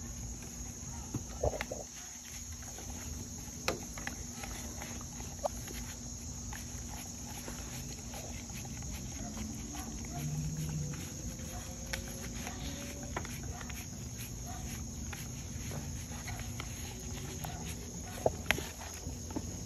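Two beagles licking ice cream from a paper cup: wet lapping with many small irregular clicks of tongues against the cup. A steady insect chirr runs behind.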